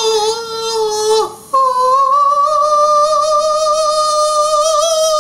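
A man's long, high-pitched wailing war cry held on one note. It breaks off briefly about a second and a half in, then starts again on a slightly higher note that rises a little and holds.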